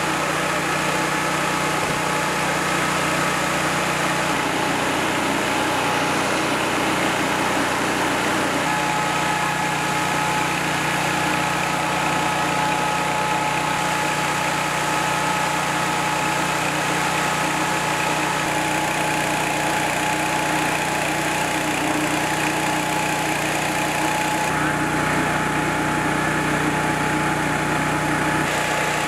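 A large engine idling steadily, with a steady high hum over it.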